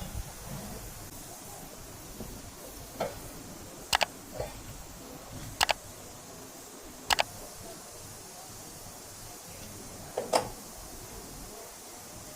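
Scattered sharp clicks and knocks of tools or parts being handled, about six in all and some in quick pairs, over a steady faint hiss.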